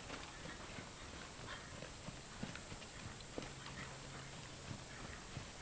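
Hoofbeats of a bay mare trotting on sand arena footing: a faint, uneven run of soft thuds.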